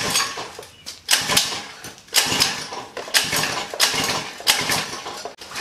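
Recoil pull-starter of a 79cc four-stroke small engine yanked repeatedly, about once a second, each pull a short rasp of the rope with the engine turning over but not firing, because its on/off switch is off.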